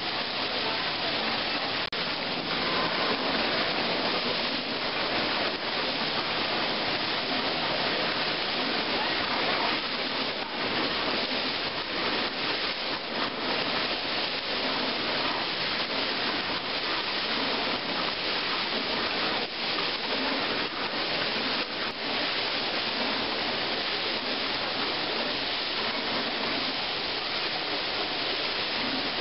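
Fountain water jets splashing steadily into the basin: a continuous, even rush of falling water.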